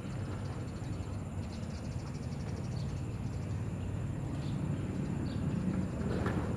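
Outdoor ambience: a steady low rumble that swells a little near the end, under a high, steady insect drone and a few short bird chirps.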